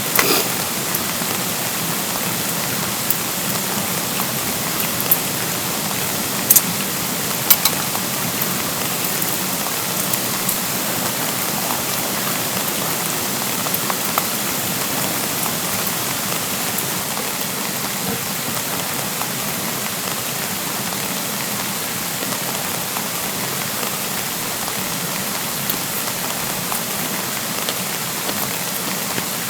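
Steady spring rain falling, with a few sharper drop taps standing out in the first several seconds.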